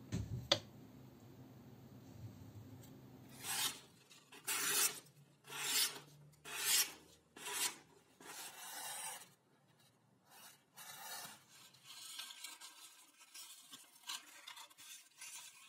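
A sharp click about half a second in, then a run of about six rasping strokes of a knife blade, roughly a second apart. After that come softer, scattered scraping and snipping sounds of paper being cut with scissors.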